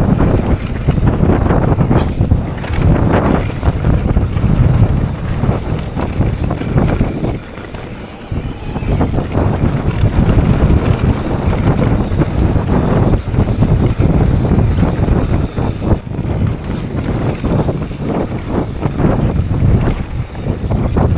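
Wind buffeting the microphone during a fast downhill bicycle run, a heavy rumbling rush, mixed with frequent knocks and rattles from the bike over rough trail. It eases briefly about eight seconds in.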